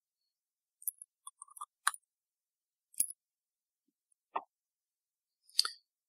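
Scattered light metallic clicks and taps, about half a dozen, as a small tool and fingers work the coil on the SubTank Mini V2's RBA deck.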